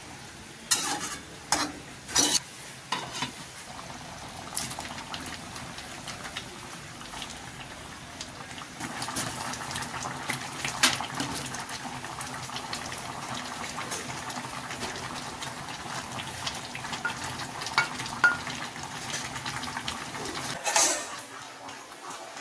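Cooking sounds: a metal utensil clinking and scraping against a pot or pan while stirring, with sharp knocks a few times. From about nine seconds in, a steady sizzle of food frying runs underneath.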